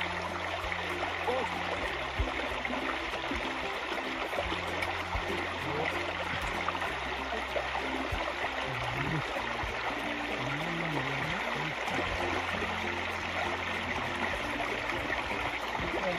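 Steady rush of flowing stream water. Background music with low held bass notes plays underneath.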